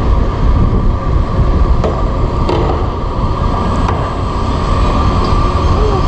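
Panama Canal electric towing locomotive running on its rail track beside the ship in the lock: a steady tone over a heavy low rumble.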